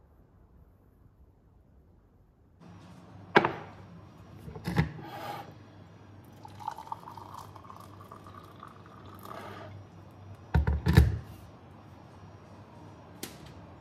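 Liquid poured from a kettle into a mug for about three seconds, amid short kitchen clunks. The loudest sound is a double clunk near the end.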